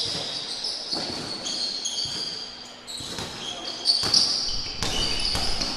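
Basketball in play on a court: the ball bouncing in dull knocks, with many short high-pitched squeaks of sneakers on the floor.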